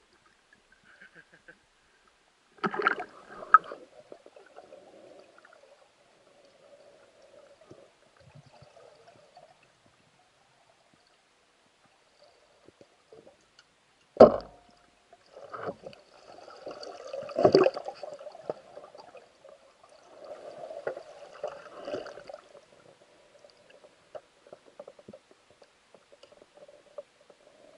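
Water sloshing and gurgling around a spearfisher swimming and diving, with a burst of splashing about three seconds in. A single sharp clack comes about fourteen seconds in, and uneven sloshing and bubbling follow.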